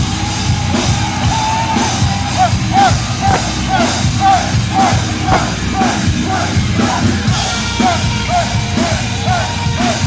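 Heavy metal band playing live at full volume: distorted guitars and pounding drums, with a repeating run of short bent guitar squeals over the riff.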